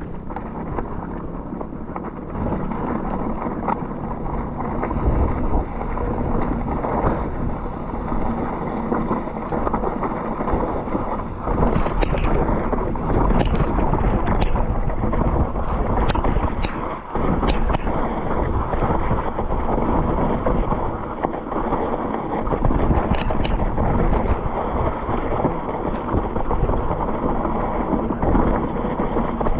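Mountain bike riding down a muddy downhill singletrack: steady wind rush on the camera microphone and tyre noise on wet dirt, with scattered sharp knocks and clicks of the bike rattling over bumps, more often from about halfway through.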